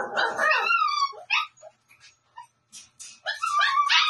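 Dogs yipping and whining in short, high-pitched calls that slide down in pitch. The calls thin out to a few scattered yips after about a second, then pick up again near the end.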